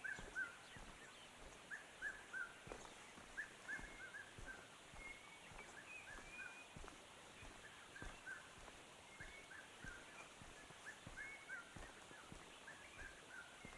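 Faint birdsong of short, repeated chirping notes in loose bursts, over soft, irregular footsteps on a dirt path.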